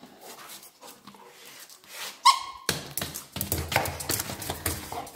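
A dog hunting for its ball on a tiled floor: snuffling and scrabbling, with one short, high squeal a little over two seconds in. Then comes a few seconds of rough scratching and rustling as it noses into a corner.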